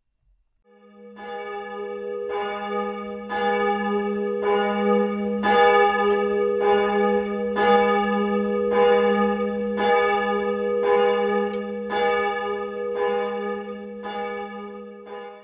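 A single church bell in the Kirchliche Hochschule Wuppertal's tower tolling, struck about once a second, its low hum carrying on under the strokes. It fades in during the first second and stops abruptly at the end.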